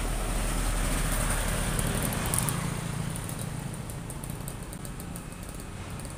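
Isuzu light truck's diesel engine and tyres driving past close by, loudest in the first two seconds or so and then fading, leaving a quieter steady traffic hum.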